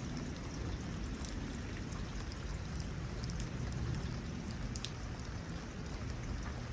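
Steady rain falling, with scattered individual drops ticking over a low, even rush.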